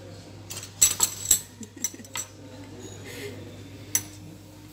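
Cutlery and dishes clinking on a café table: a handful of sharp clinks with a brief ringing, bunched about a second in, and one more near the end.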